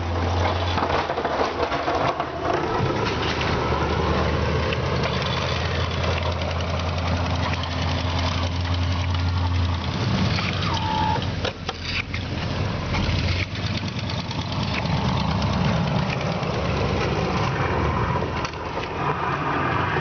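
Snowplow truck's engine running while it plows a driveway, with a steady low hum for the first half that shifts and varies after about halfway, under a constant noisy wash.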